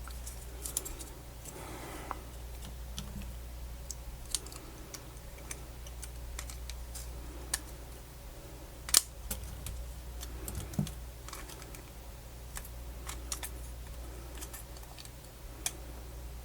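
Small parts of a Sony MZ-NH700 MiniDisc Walkman being handled and fitted by hand during reassembly: scattered light clicks and taps at irregular intervals, one sharper click about nine seconds in, over a steady low hum.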